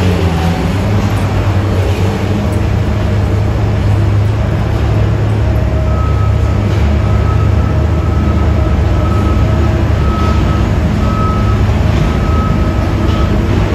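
New York City subway train running in the station with a loud, steady low rumble. In the second half a high-pitched beep repeats about once a second.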